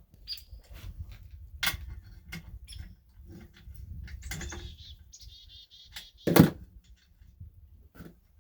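Steel parts being worked into place by hand: scattered clicks and knocks, a high metal squeak about four seconds in, then one loud clunk a couple of seconds later as a piece drops or seats.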